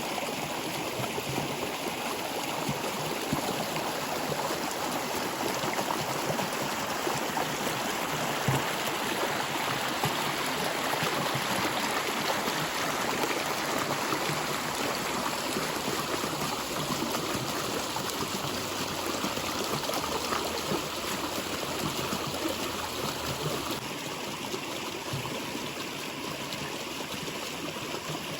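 A stream of water flowing steadily, a little quieter in the last few seconds.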